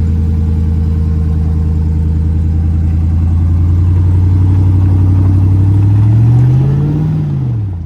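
Full-size pickup truck engine running steadily under light throttle. About six seconds in the revs rise, then drop back near the end.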